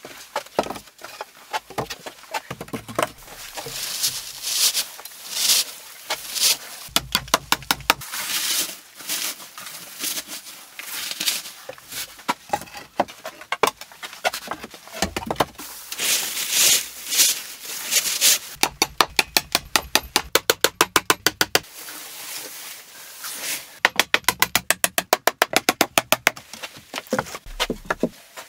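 Hand tools working pallet-wood boards and framing: a series of rasping strokes, and three quick runs of sharp clicks at about seven or eight a second, once in the first third, again past the middle and near the end.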